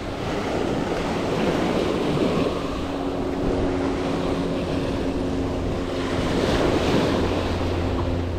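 Small surf waves breaking and washing up a sandy beach, with wind buffeting the microphone. A faint steady low hum runs underneath from about a second in until near the end.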